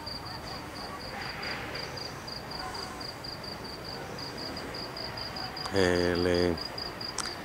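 A cricket chirping steadily, high-pitched and even, about five chirps a second. A man's voice sounds briefly about six seconds in.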